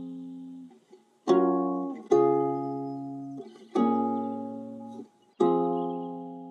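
Background music: slow strummed chords on an acoustic plucked-string instrument, four chords in turn, each ringing and fading before the next.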